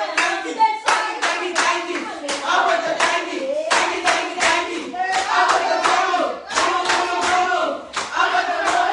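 A group of people singing together to steady rhythmic hand-clapping, about three claps a second.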